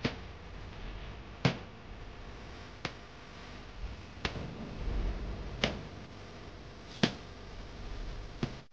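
Seven sharp knocks, evenly spaced about every one and a half seconds, over a faint low hum.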